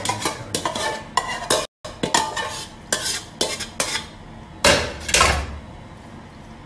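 Metal spoon clinking and scraping against a large aluminium cooking pot as macaroni is tipped in and spread over layered rice, in a run of irregular knocks. The sound cuts out for a moment about two seconds in.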